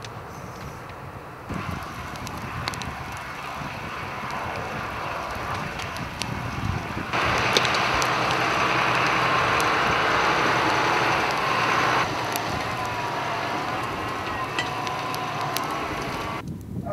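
Burning brush and smouldering debris crackling, with wind on the microphone. In the middle a forestry tractor's engine runs loudly for about five seconds, starting and stopping abruptly.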